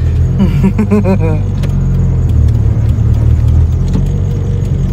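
Mitsubishi Lancer being driven, heard from inside the cabin: a steady low drone of engine and road noise.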